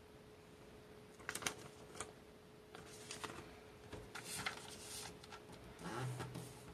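Sheet of origami paper rustling and crackling in a series of short handling noises as it is folded, turned over and pressed flat by hand on a table, over a faint steady hum.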